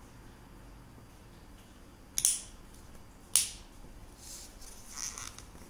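Two sharp plastic clicks about a second apart as the halves of a plastic acro ball are pressed together on a paragliding riser, followed by softer scratchy handling noise.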